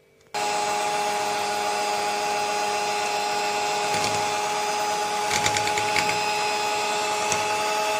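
Electric hand mixer switched on and running steadily with a constant whine, its beaters whisking red food colouring into red velvet cake batter in a glass bowl. A few quick ticks come a little past halfway.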